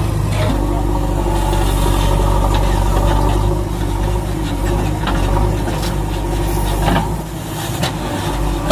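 A heavy engine idling steadily with a low rumble, with a few faint clicks, dipping slightly in loudness about seven seconds in.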